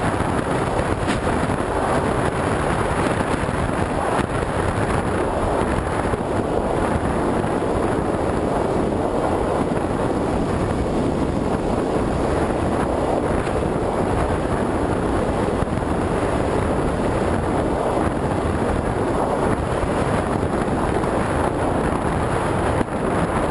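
Steady rush of airflow buffeting a GoPro camera mounted on a flying FPV Raptor model plane, with a brief dip near the end.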